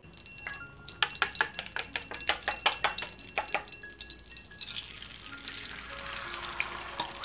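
Hot oil in a steel wok crackling and popping, with a wooden spoon scraping beaten egg out of a bowl. About four and a half seconds in, a steady sizzle starts as the egg mixture pours into the oil and begins to fry.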